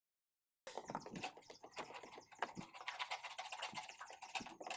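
A dense run of small, irregular clicks and taps from a hand screwdriver and screws being worked in to fix a washing machine's gearbox. It starts abruptly out of silence about two-thirds of a second in.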